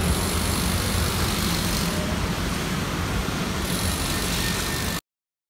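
Busy road traffic: motor scooters and cars passing in a steady stream, a constant din of engines and tyres that cuts off suddenly near the end.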